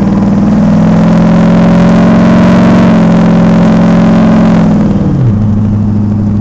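Turbocharged Ford Lightning pickup's V8 engine heard from inside the cab, pulling hard under acceleration, on a test run with a freshly replaced wastegate gasket. About five seconds in the engine note drops quickly and settles at a lower steady pitch.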